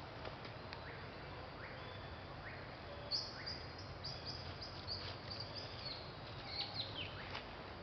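Birds chirping: a quick run of short, high chirps begins about three seconds in, over steady outdoor background noise.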